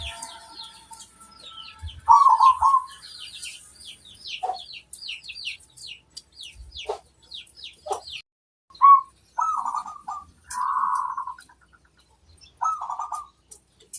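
Zebra dove (perkutut) cooing in short bursts of clipped notes, a few times over. For the first half they sit among a fast, busy run of high chirps from small birds.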